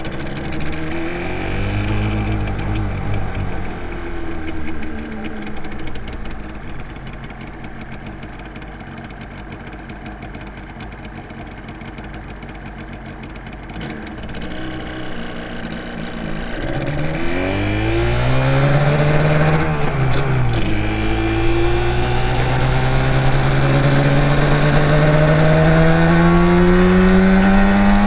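Yamaha TDR250's two-stroke parallel-twin engine under way: it winds down and runs quieter for several seconds, then revs up through a gear, shifts about twenty seconds in, and pulls up steadily again before dropping for another shift near the end.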